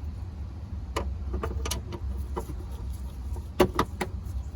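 Small metal clicks and knocks from hand-fitting a Mercedes W123 trunk lock, its nuts being started on the studs, over a steady low rumble. A quick cluster of three sharper clicks comes near the end.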